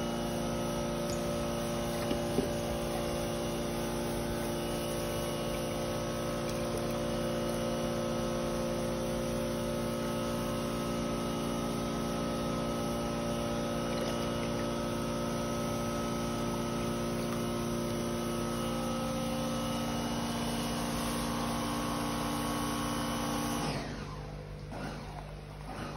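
Steady electric motor hum with several held tones, which cuts off abruptly about two seconds before the end and leaves a quieter hiss.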